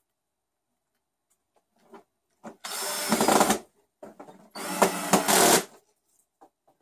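Cordless drill running in two short bursts of about a second each, driving screws into a plastic housing, with small handling clicks between the bursts.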